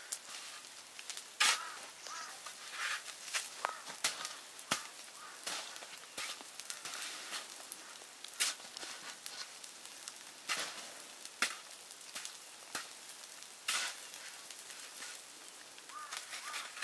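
A small shovel digging and scraping in snow: irregular crunches and scrapes, a few sharper ones standing out.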